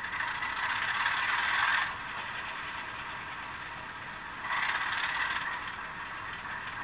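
Model-train sound decoder playing an ALCO 244 turbocharged diesel start-up through the locomotive's small speaker: a thin, rapid run of mechanical pulses with no bass, louder for the first two seconds, quieter, then swelling again briefly about four and a half seconds in.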